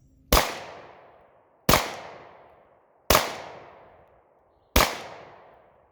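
Four gunshots fired one after another, about a second and a half apart, each sharp crack trailing off in a long echo.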